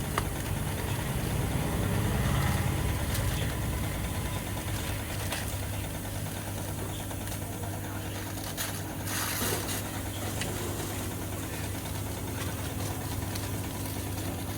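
Deutz-Fahr tractor's diesel engine idling steadily.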